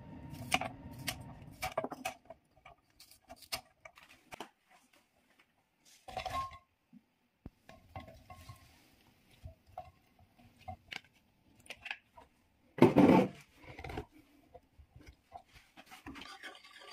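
Kitchen prep at a wooden cutting board: kitchen scissors snipping chili peppers in a stainless steel mesh strainer, a run of sharp clicks, then scattered light clinks and one loud clatter as cut cucumber is tipped into a glass container of chilies and garlic.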